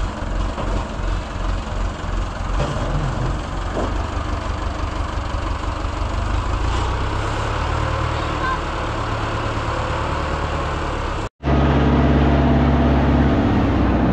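Tractor engine running at low revs with a pulsing beat. An abrupt cut about eleven seconds in is followed by a louder, steadier engine note.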